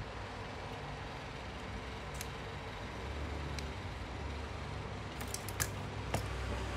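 Light clicks and taps of small metal clock parts and hand tools being handled on a workbench: a few single clicks, then a quick cluster of them and one more near the end, over a steady low hum.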